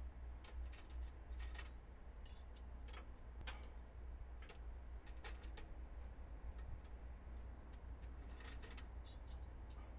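Faint, irregular clicks and light metallic clinks of hand tools working at a truck's front wheel hub during kingpin repair, over a steady low rumble.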